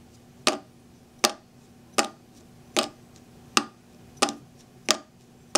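Finished electronic dice kit running, giving eight sharp, evenly spaced clicks about three-quarters of a second apart.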